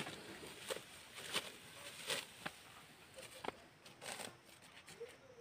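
Ripe rice stalks being cut by hand with a sickle: a series of faint, short, crisp crunching swishes at an uneven pace, about one or two a second.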